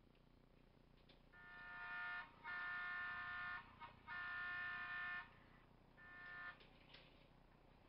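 HO-scale model locomotive's DCC sound decoder blowing a multi-chime horn: four blasts, three of about a second each and a short last one.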